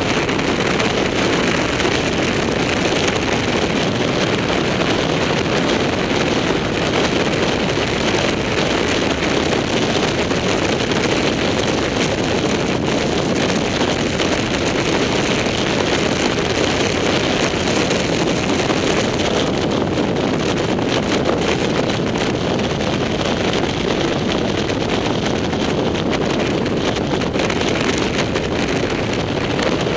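Motorcycle riding at steady road speed: an even rush of wind over the microphone, with the bike's engine and tyre noise blended underneath.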